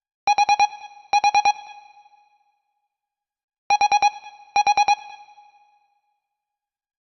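LG KS10 mobile phone ringtone: two quick groups of four identical electronic beeps, each pair of groups trailing off in a short ring. The pattern repeats about every three and a half seconds.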